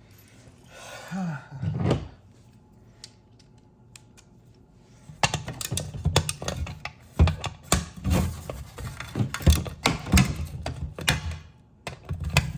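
Hand tools and metal parts clicking and knocking as an 8 mm bolt on motorcycle rear brake hardware is undone. A brief scraping rustle comes about a second in, then a quick, irregular run of sharp clicks and dull knocks starts about five seconds in.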